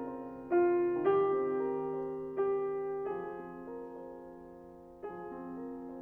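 Steinway D concert grand piano played solo in a slow passage: five chords struck over the span, each left to ring and fade, with a longer dying-away stretch before the last one near the end.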